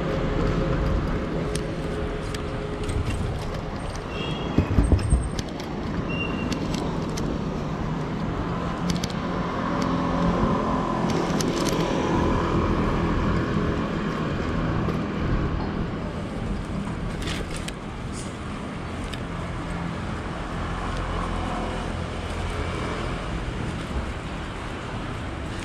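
Street traffic: a steady rumble of road vehicles on a city street, swelling for a few seconds near the middle. About five seconds in there is a short burst of loud low thumps.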